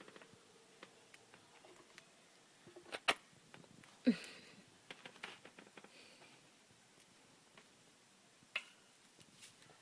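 Scattered small clicks and taps from pet parrots working at toy parts with their beaks. There is a sharper click about three seconds in, a short falling call about four seconds in, and another click near the end.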